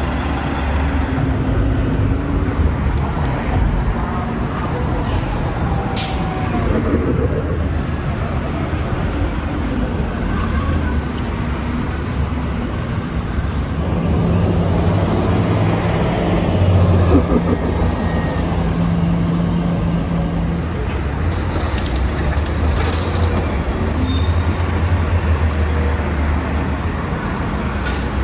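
City street traffic dominated by CNG-powered transit buses, with the engine drone growing stronger as one bus turns close by in the middle. Short air-brake hisses are heard now and then.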